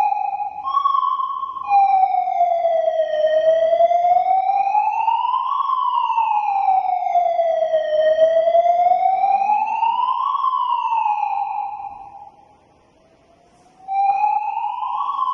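Qlight electronic emergency-vehicle siren sounding a slow wail, its pitch rising and falling over several seconds per cycle. About a second in it briefly holds a steady higher tone; about 12 s in it cuts out for roughly two seconds, then the wail starts again.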